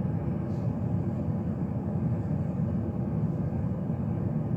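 Steady low rumble of background noise, with no clear events.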